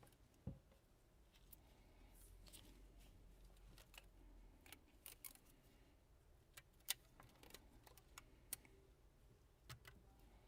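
Near silence broken by scattered light clicks and taps, the sharpest about seven seconds in, from handling a smartphone as rubber bands are put around it to hold its newly glued screen.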